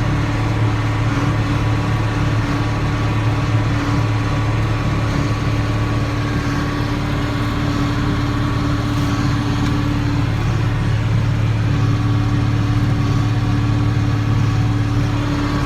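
John Deere 4960 tractor's six-cylinder diesel running steadily under load, pulling a New Holland D800 big square baler through the hay, heard as an even, constant drone.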